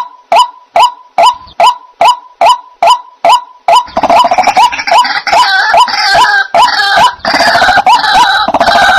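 White-breasted waterhen (dahuk) calling: a short, hooked, pitched note repeated a little over twice a second. About four seconds in, more overlapping calls join, and the sound becomes a busy, continuous chorus.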